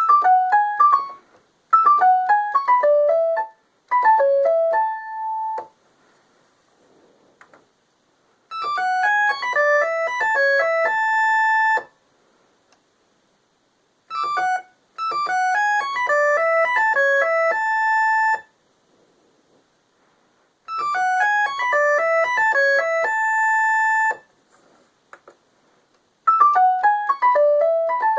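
Technics SX-K700 electronic keyboard playing short phone-ringtone melodies in a piano-like voice. Quick runs of notes each end on a held note, and the phrase is repeated several times with silent gaps between.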